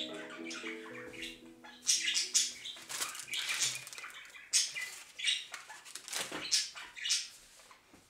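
Background music fades out in the first second or so. Then come irregular short rustling and scratching noises of hands handling wooden plant labels and fibre seed-starting pots on a cloth-covered table.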